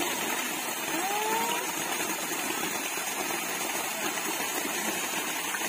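Steady rush of a water feature: a sheet of water pouring from a tiled wall and splashing into a swimming pool.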